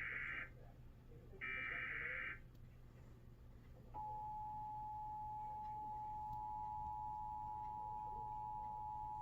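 Emergency Alert System SAME header data bursts: one ending just after the start and a second about 1.5 s in, each a raspy digital burst about a second long. About 4 s in, the two-tone EAS attention signal (853 and 960 Hz) starts and holds steady over a low hum.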